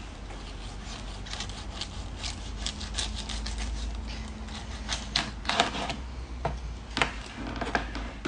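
Long knife sawing through the crisp crackling of a roasted suckling pig back: a run of irregular crunching crackles, loudest about five to six seconds in.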